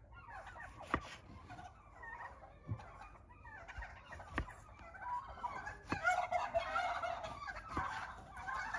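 Kitchen knife cutting through a tomato on a wooden cutting board, each slice ending in a light tap on the wood, five times about every second and a half. Turkeys gobble behind it, getting louder from about halfway through.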